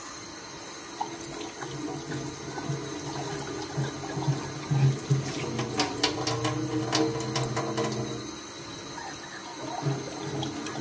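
Kitchen tap running into a stainless-steel sink while a mug is rinsed under it by hand. There are several sharp clinks between about four and seven seconds in.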